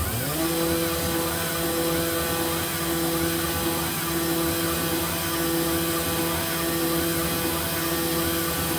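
CNC router spindle spinning up, its pitch rising over about half a second, then running at a steady pitch.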